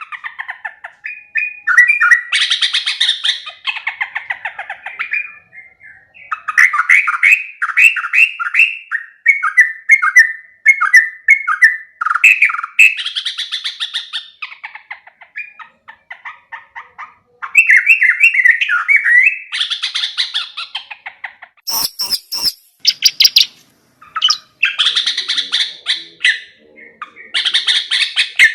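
Sooty-headed bulbul (trucuk) song: repeated phrases of quick, chattering notes, broken by short pauses between phrases. A brief crackle comes about two-thirds of the way through.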